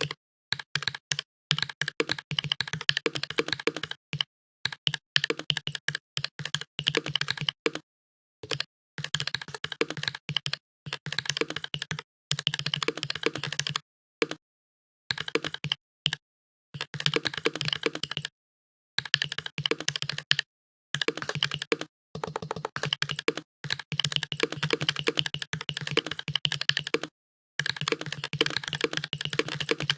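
Fast typing on a computer keyboard: quick runs of key clicks broken by short pauses every second or two.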